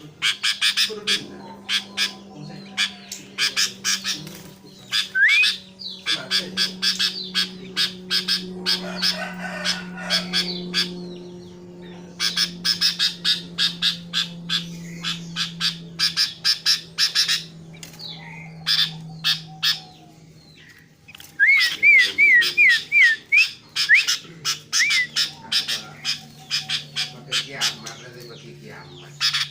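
Sooty-headed bulbul (kutilang) calling in long runs of rapid, harsh chattering notes, with a short series of quick rising whistles about two-thirds of the way through, over a steady low hum.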